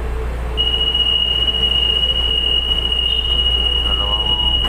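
Inside a light-rail train car: a steady low hum, then a flat, high-pitched tone that starts about half a second in and holds without wavering.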